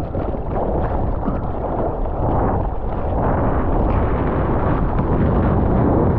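Strong wind buffeting the action camera's microphone: a loud, steady, low rumble.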